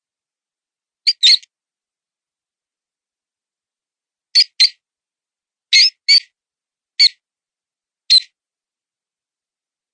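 Mouse distress squeaks used as a predator-calling lure, imitating a wounded mouse: eight short, high squeaks, several in quick pairs, with silent gaps between.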